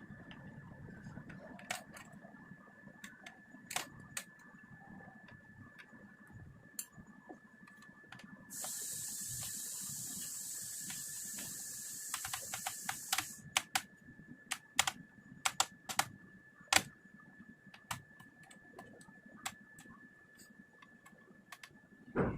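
Scattered small plastic and metal clicks and taps from handling a Dell laptop while taking out its RAM, with a quick run of clicks a little past the middle. Before that run comes an even hiss lasting about five seconds, and a faint steady high whine sounds underneath throughout.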